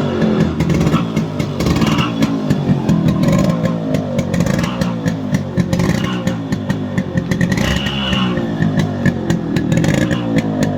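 Yamaha RX135's single-cylinder two-stroke engine running and being revved, with a rapid, crackly exhaust beat that rises and falls in pitch.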